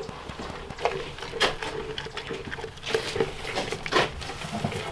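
A goat rummaging and eating grain in a plastic feed pan at a milking stand: scattered rustling with a handful of sharp clicks and knocks from muzzle on pan and the wooden stanchion.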